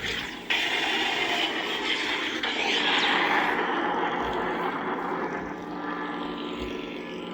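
Lightsaber soundfont: a steady electric hum, swelling suddenly about half a second in, with a long swing whoosh rising and falling around three seconds.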